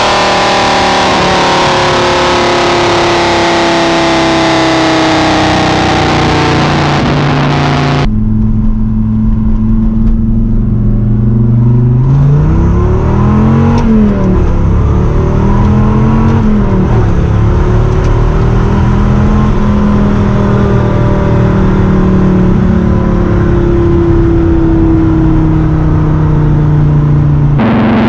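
The 8.0-litre V10 of a 1999 Dodge Viper RT/10 with a cat delete and aftermarket catback exhaust, under way. Heard first from a microphone at the rear exhaust, the revs ease down slowly. Then, from inside the cabin, the revs rise and fall twice in quick succession before settling into a steady run with a slow climb.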